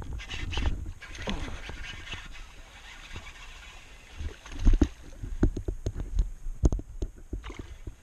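Irregular knocks, clicks and thumps of handling on a plastic fishing kayak, with a heavier cluster of thumps about halfway through.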